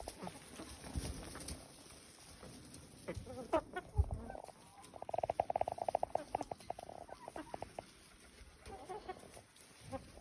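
Chickens clucking, with a rapid run of clucks from about five seconds in that lasts two to three seconds. A dull thump sounds just before four seconds.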